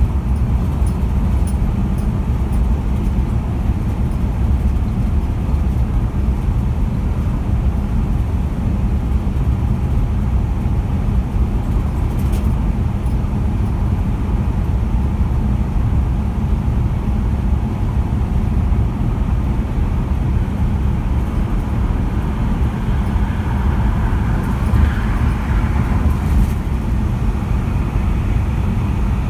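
Steady road and engine noise of a car travelling at highway speed, with a brief swell of noise about 25 seconds in.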